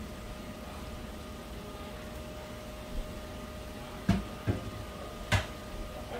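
Cookware being handled: a light click, then three sharp knocks in the last two seconds as the pan lid is moved and set down, over a steady kitchen hum with a faint constant whine.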